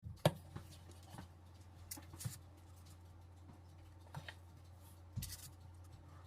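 A few light, scattered taps and clicks over a steady low hum.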